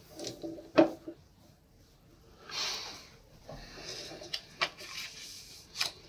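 Soft pastel sticks clicking as they are set down on a hard tabletop, with one sharp click a little under a second in. A strip of paper then slides across the table with a brief rustling hiss as it is squared up, followed by a few light taps.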